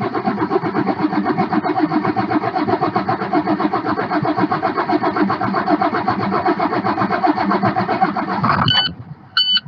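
Starter cranking an International MaxxForce DT straight-six diesel in a steady rhythm for about nine seconds without the engine catching: an extended crank, the sign of the hard-start fault being diagnosed. The cranking stops abruptly near the end, and two short electronic beeps follow.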